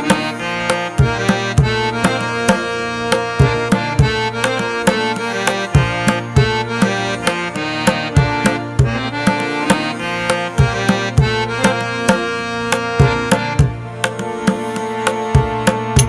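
Background music: drums playing a steady, busy rhythm over held instrumental chords.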